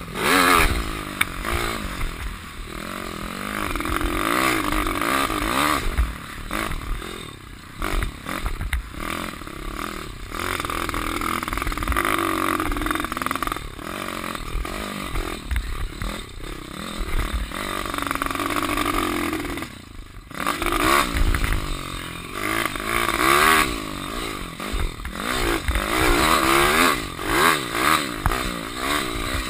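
Pit bike's Daytona T-Rex 150 single-cylinder four-stroke engine under hard riding, revs rising and falling through the gears, with wind noise on the helmet microphone; the revs drop off briefly about twenty seconds in. The uploader says the carburettor's idle jet is too small.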